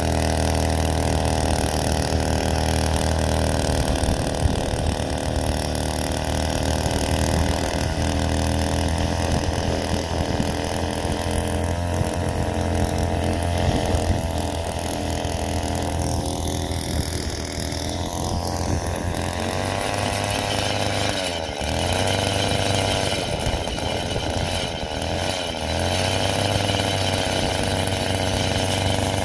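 Earthquake MC43 cultivator's 43cc two-stroke Viper engine running steadily while tilling soil, its speed wavering and dipping briefly a little past twenty seconds in as the tines dig in. The owner suspects it is getting only about a quarter throttle.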